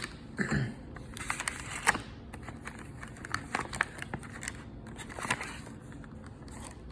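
Packaging being handled during an unboxing: plastic and cardboard crinkling and rustling, with scattered sharp clicks and taps.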